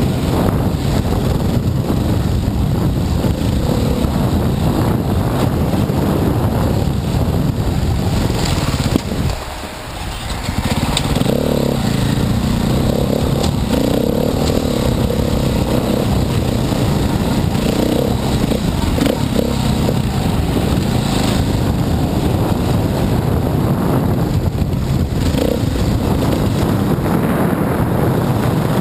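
Dirt bike engine running hard under throttle, heard close up from the rider's helmet. About nine seconds in the throttle is briefly shut and the engine note drops, then picks back up.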